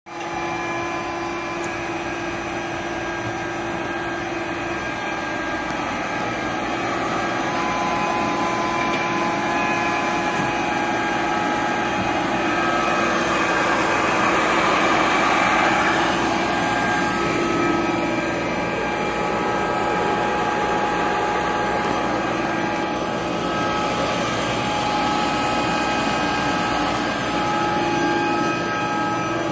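Okamoto IGM-1E internal grinder switched on and running: a steady mechanical hum with several steady whining tones over a hiss, swelling a little louder around the middle.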